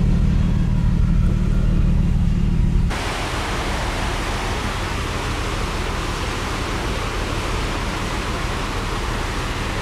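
Steady rushing hiss of a ferry's churning wake water. A heavy low rumble under it stops abruptly about three seconds in, leaving the hiss alone.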